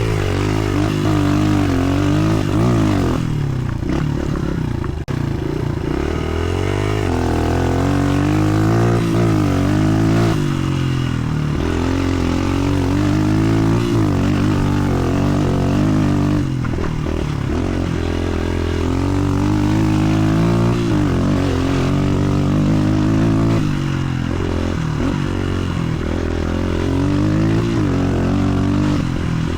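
Suzuki DR-Z125L's single-cylinder four-stroke engine through a Pro Circuit T4 aftermarket exhaust, revving up and falling off again and again as the bike is ridden hard.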